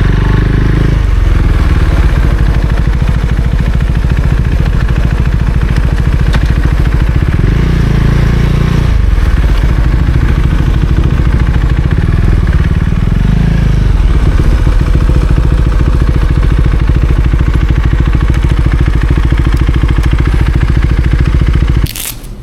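Husqvarna Svartpilen 401's single-cylinder engine running under way, its note rising and falling a few times as the throttle is worked. The sound drops off suddenly near the end.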